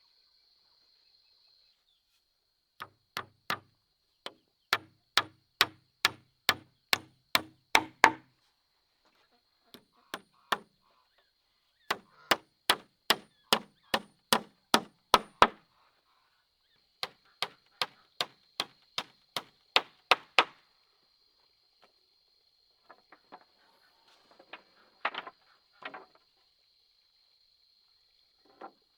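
A tool striking wood with sharp, even blows, about two a second, in three runs of eight to twelve strikes with short pauses between, then a few lighter, scattered knocks near the end.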